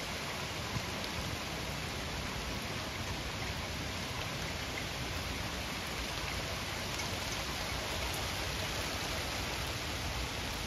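Steady rain falling through trees and onto foliage, an even hiss that holds without a break.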